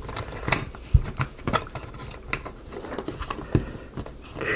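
Irregular light clicks and taps of wooden kit parts being handled and pressed together, over a soft handling rustle.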